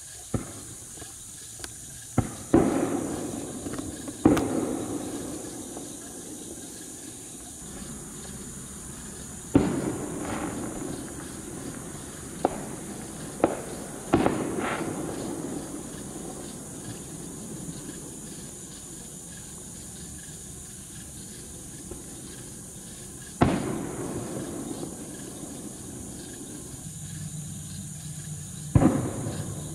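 Distant fireworks going off: about ten sharp bangs at irregular intervals, the biggest of them trailing off in a rolling rumble for a second or two.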